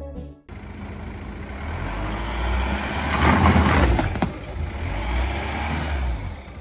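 An SUV being driven slowly past at close range: engine rumble and tyre noise on asphalt, growing loudest about three to four seconds in as it passes, with a couple of sharp clicks near the loudest point.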